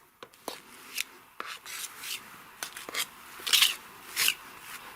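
Wide plastering spatula scraping wet Rotband gypsum plaster across an aerated-concrete wall in a series of short strokes, the loudest two about three and a half and four seconds in.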